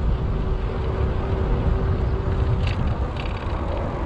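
Wind buffeting the action-camera microphone on a moving bicycle, a steady low rumble mixed with tyre noise on asphalt. About two-thirds of the way through, a rapid ticking sets in.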